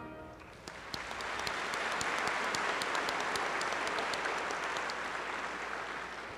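Audience applauding. It starts about a second in, swells, then fades away near the end.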